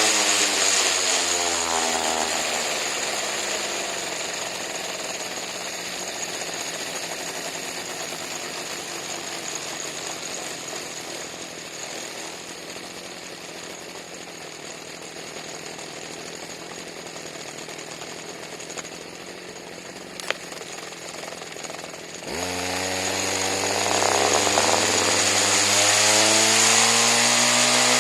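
Weed eater engine spinning an Arctic Cat 400 ATV flywheel: its pitch falls away as it winds down, leaving a long fading whirring hiss as the flywheel coasts. There is a sharp click about 20 seconds in, and about 22 seconds in the engine comes back and revs up.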